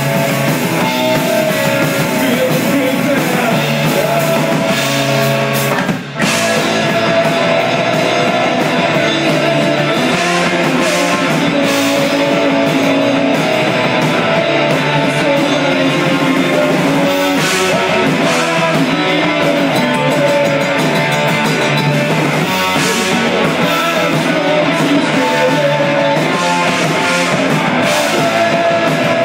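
Live rock band playing loud: electric guitar through Marshall amplifier cabinets, electric bass and drum kit. The band cuts out for a split second about six seconds in, then carries on.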